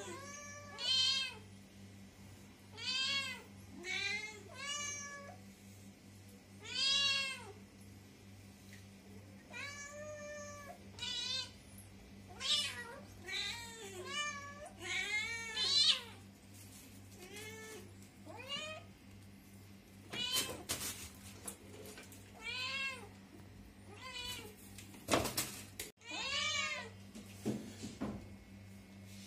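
Young black-and-white cats meowing repeatedly: short calls that rise and fall in pitch, coming every second or so, some higher and some lower. A couple of brief clicks near the middle and a faint steady low hum under it all.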